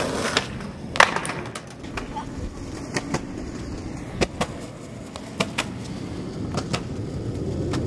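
Skateboard wheels rolling on a concrete sidewalk with a steady rumble, broken by a series of sharp board clacks. The loudest clack comes about a second in.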